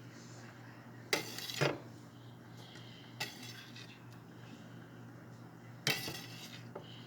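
Utensils clattering against dishes while a sandwich is put together: a few sharp clinks and knocks spread over several seconds, over a steady low hum.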